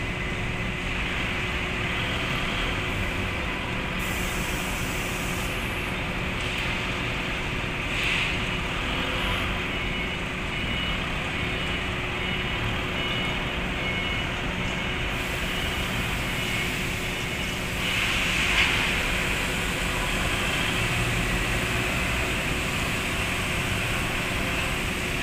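Forklift engine running steadily as the truck moves loaded pallets of cement bags, with a faint repeated high beep for several seconds midway.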